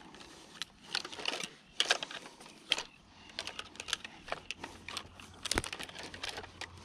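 Irregular sharp clicks and light taps, a few a second, with one louder knock about two thirds of the way through: fishing rods and reels being handled.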